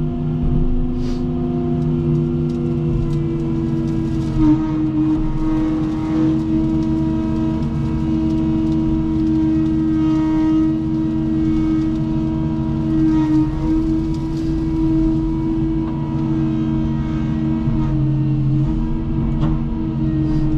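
Cat 310 excavator's diesel engine running steadily under hydraulic load while it works a grapple, with a few short knocks and cracks on top.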